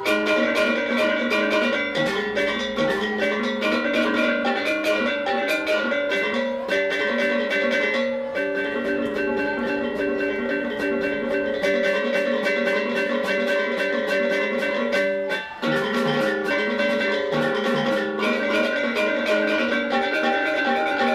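Balinese gamelan gong ensemble playing: bronze metallophones and a row of kettle gongs (reyong) struck in fast, dense interlocking strokes, with drums. The playing breaks off briefly about fifteen seconds in and then carries on.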